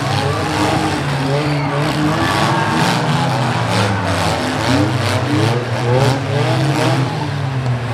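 Six-cylinder demolition derby car engines running and revving hard, the pitch repeatedly rising and falling. A run of sharp knocks comes in the first half.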